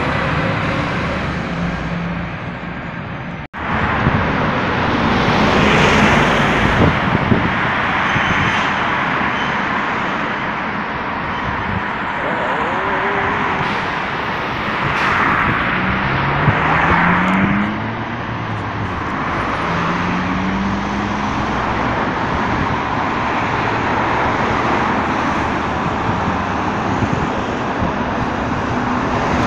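Road traffic with tyre and engine noise from passing cars and buses. Twice midway an engine rises in pitch as a vehicle accelerates. There is a sudden brief break a few seconds in.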